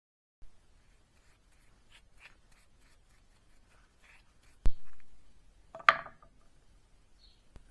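Hand work on a plane in a workshop: faint quick rubbing strokes, about four a second, then a sharp knock, the loudest sound, and a short rasping scrape about a second later.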